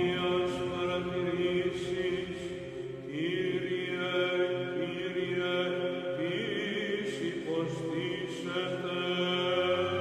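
Background music with long held tones and a few slow sliding pitches.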